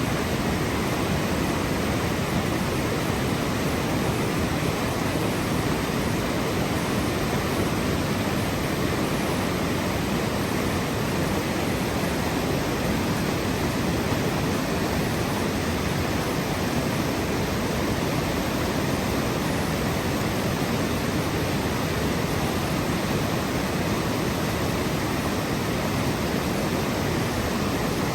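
Steady, unbroken rushing of running water, like a waterfall, with no changes or separate events.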